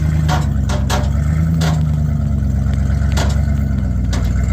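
Old Ford F-150 pickup engine running with a steady low drone, rising slightly in pitch about a second and a half in. Several sharp knocks and clanks sound over it.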